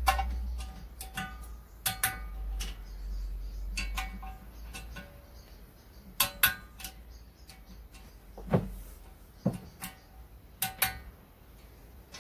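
Ratchet torque wrench clicking and socket clinking on steel bolts as bolts on a Subaru WRX engine are tightened to 10 Nm. Sharp metallic clicks come in small clusters at uneven intervals; the loudest is about six seconds in.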